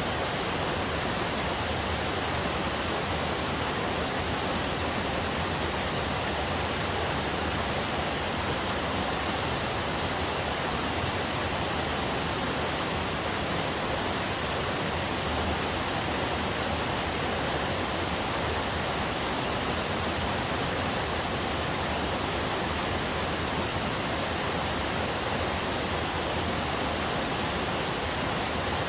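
Small waterfall on a forest river: water falling and rushing in a steady, even wash of noise.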